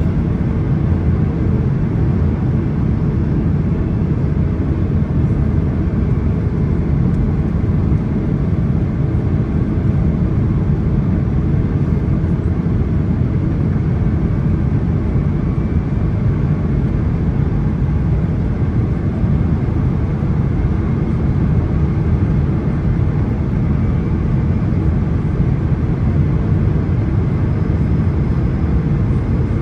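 Steady low roar of airflow and GE90 engine noise heard inside the cabin of a Boeing 777-300ER in flight on its approach for landing.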